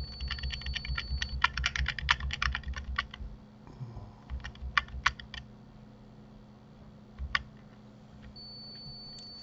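Computer keyboard typing: a quick run of keystrokes for about three seconds, then a few scattered single key clicks.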